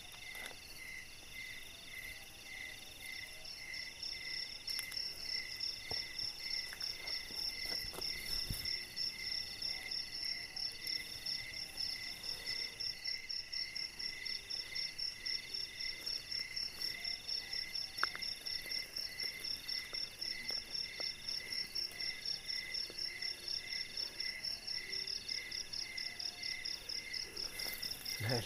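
Night chorus of crickets and other insects: several steady, evenly pulsing calls at different pitches, with a higher, faster-pulsing call joining about four seconds in.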